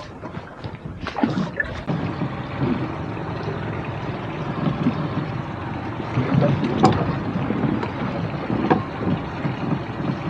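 Wind and water noise around a small anchored fishing boat, with a few short sharp knocks about a second in, near seven seconds and near nine seconds.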